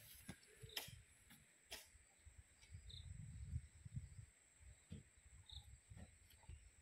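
Near silence with a faint, steady, high-pitched insect trill running throughout, a few faint short chirps, and some faint low rumbles and clicks.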